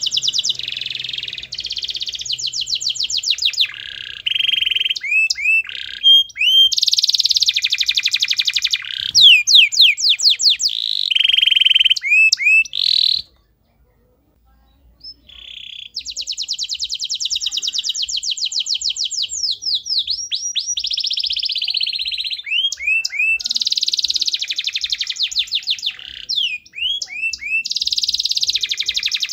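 Yellow domestic canary singing a long song of rapid trills and rolls mixed with quick sweeping whistled notes. It breaks off for about two seconds near the middle, then starts again.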